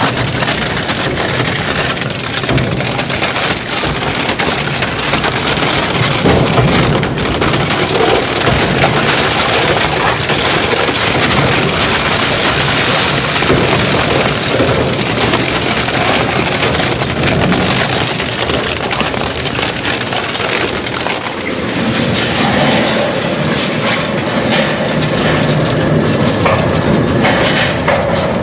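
Twin-shaft industrial shredder crushing and tearing a scooter's plastic body panels and metal frame: a dense, continuous crackling and crunching.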